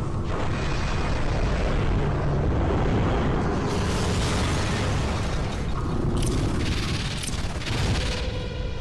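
Battle sound effects from an animated action clip: a continuous heavy explosion rumble, with sharper blasts about four, six and seven seconds in.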